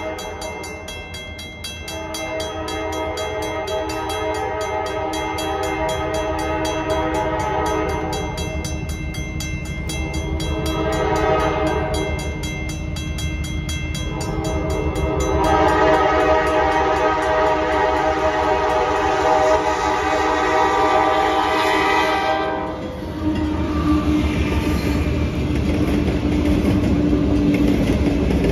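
Diesel freight locomotive air horn sounding for a grade crossing as the train approaches, in several blasts. The last and loudest blast is held for about seven seconds and cuts off sharply. After it come the rumble of the locomotives and their wheels as the lead units reach the crossing near the end.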